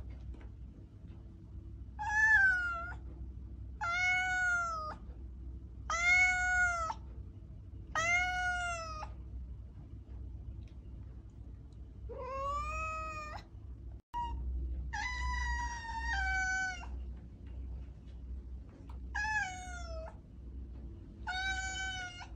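Domestic cat meowing over and over: about eight drawn-out meows, each about a second long, arching in pitch, spaced roughly two seconds apart over a low steady hum.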